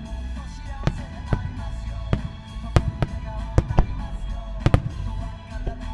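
Fireworks shells of a starmine barrage bursting in a string of sharp bangs at irregular intervals, over pop music playing.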